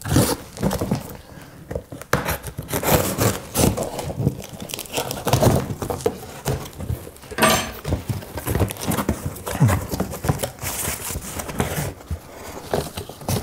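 Packing tape on a cardboard box being slit with a knife and torn, then the cardboard flaps pulled open and handled, in a run of irregular scrapes and crackles.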